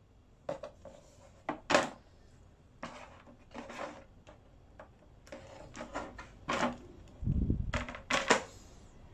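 Scattered clicks and light knocks from small plastic parts and tools being handled during repair work, with a dull low thump about seven seconds in.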